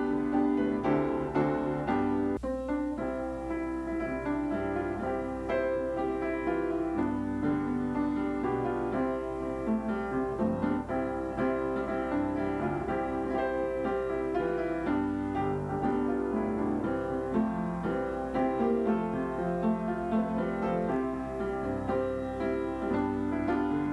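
Piano music: a steady flow of notes and chords.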